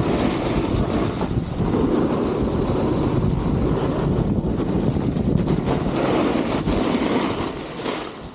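Wind rushing over the microphone and a snowboard scraping and hissing over packed snow as it rides downhill, easing off near the end as the board slows.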